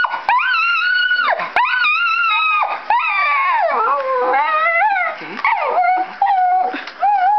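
Poodle screaming in long, high-pitched, wavering howls, about five cries in a row with short breaks between, an excited reaction to an animal on a computer screen.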